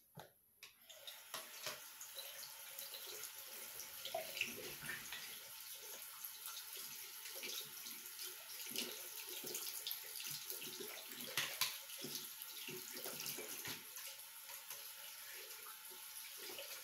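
Water running from a tap into a sink, with uneven splashing as the stream hits something held under it. The flow comes on about a second in.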